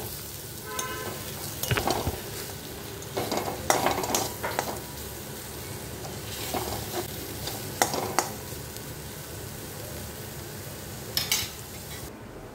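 Potato and cauliflower stir-frying in a kadai: oil sizzling steadily while a spatula scrapes and turns the vegetables against the pan in a series of short strokes.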